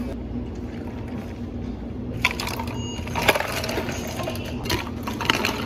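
Milk being poured over ice in a plastic cup, with the ice crackling and clinking; the sharp clicks come thickest from about two seconds in, over a low steady hum.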